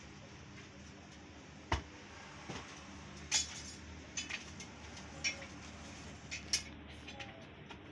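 Scattered sharp clinks and knocks, about eight spread over several seconds, of a metal rod working naan inside a clay tandoor. A steady low hum runs underneath.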